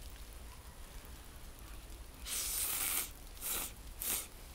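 A person slurping ramen noodles: one long slurp starting about two seconds in, then two short ones.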